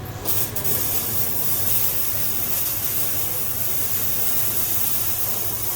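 MIG welding arc laying a bead on a plate: a steady sizzling hiss that starts abruptly just after the start and holds steady.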